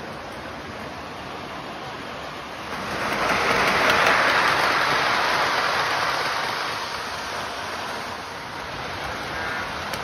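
Three-rail O-gauge model freight train running on its track: a steady rolling noise of wheels and motor that swells as the train passes close about three seconds in, then eases off.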